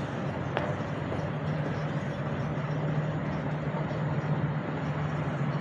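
Electric hoist motors of a suspended work cradle running with a steady low hum as the platform travels up the building face.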